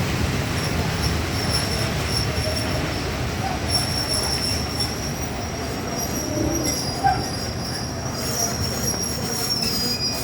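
Passenger train pulling into a station: a steady rumble of the rolling cars with a thin, high metallic squeal from the wheels and brakes that comes and goes, holding steadier in the second half.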